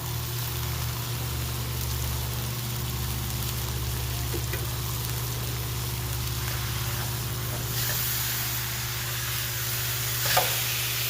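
Pork chops sizzling on a 22-inch Blackstone Adventure Ready propane griddle: a steady frying hiss that grows louder about three-quarters of the way through, over a steady low hum.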